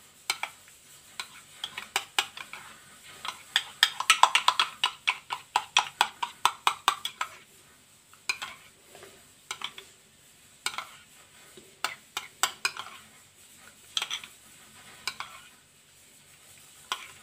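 Metal spoon stirring a thin milky mixture in a bowl and clinking against its sides. A fast run of clinks, about five a second, comes a few seconds in, then scattered single clinks.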